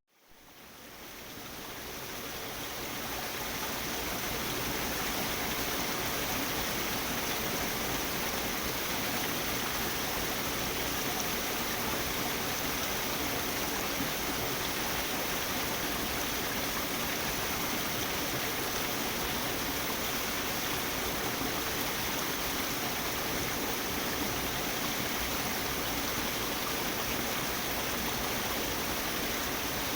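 Rushing water of a woodland waterfall and stream, a steady roar that fades in over the first few seconds.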